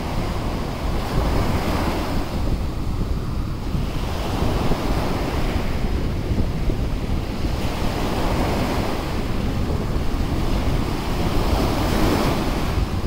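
Small surf breaking and washing up a sandy beach, the wash swelling and easing every three to four seconds. Wind rumbles on the microphone underneath.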